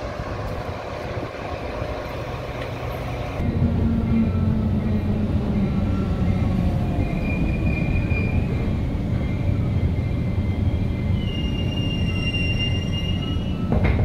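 Metra bilevel commuter train rolling by at a platform. About three and a half seconds in, the sound changes to the inside of a Nippon-Sharyo gallery cab car slowing into a station: a steady low rumble and hum, with high brake and wheel squeals twice.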